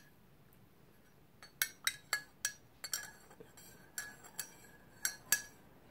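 Metal teaspoon clinking against the inside of a ceramic mug as tea is stirred: about a dozen light clinks, each with a short ring, starting about a second and a half in.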